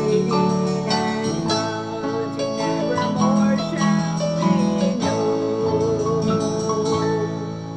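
Instrumental music with a plucked guitar and bell-like mallet tones under a held, wavering melody line. It begins to fade near the end.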